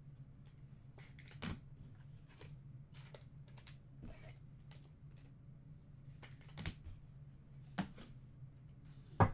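Trading cards in plastic top loaders and sleeves being handled and sorted: faint rustling with a few sharp plastic clicks, over a steady low hum.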